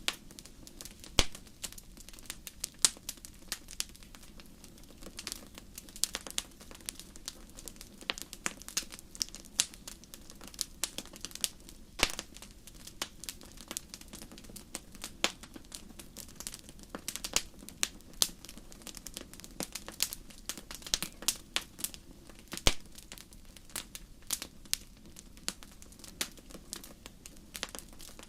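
Wood fire burning in a fireplace: a steady stream of irregular crackles and pops, several a second, some sharper and louder than the rest, over a soft low hiss.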